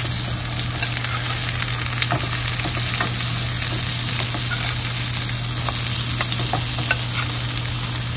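Butter and olive oil sizzling steadily around blueberry oat pancakes in a frying pan, with light clicks and scrapes from a metal slotted spatula as the pancakes are turned over.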